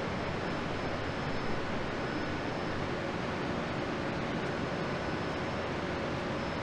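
Steady factory-floor noise from an engine assembly line: a continuous even hiss and hum with a few faint steady tones, without distinct knocks or tool bursts.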